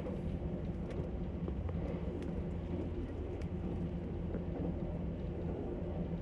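Cabin sound of a JR Kyushu 783 series electric train running at speed: a steady low rumble of wheels on rail with a low steady hum, and a few faint clicks.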